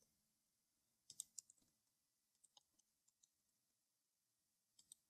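Near silence, broken by a few faint computer mouse and keyboard clicks: a quick cluster of three or four about a second in, one or two more around the middle, and two near the end.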